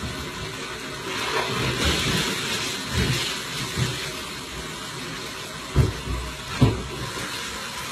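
Water running and splashing in a kitchen sink, heaviest in the first half. Near the end come two sharp knocks, under a second apart.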